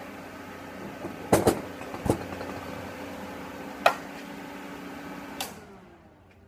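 Everlast PowerTig 250EX TIG welder sitting powered with its cooling fan running in a steady hum, with several sharp clicks and knocks of handling at its front panel. About five and a half seconds in, a click as the machine is switched off, and the fan hum winds down to quiet.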